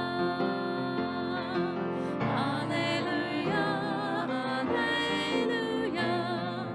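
Slow, gentle church music during Mass: held chords with a melody line that wavers with vibrato above them, changing note every second or two.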